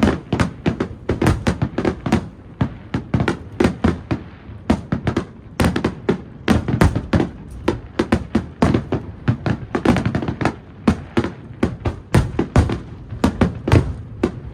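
Finale of an aerial fireworks display over the sea: a rapid barrage of shell bursts, several sharp reports a second without a break.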